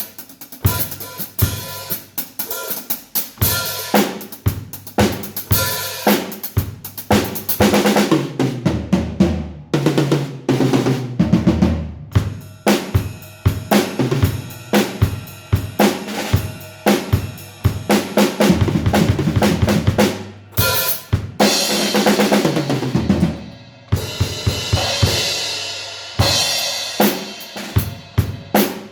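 Tama acoustic drum kit with Istanbul cymbals played through grooves and fills on snare, bass drum and toms. About a third of the way in come tom runs stepping down in pitch, and about three-quarters of the way through the cymbals ring out in a sustained wash.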